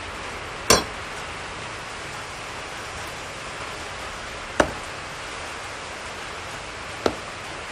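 A steel knife blade knocking sharply against a flat board three times as it is picked up and set down, the first knock the loudest, over a steady hiss.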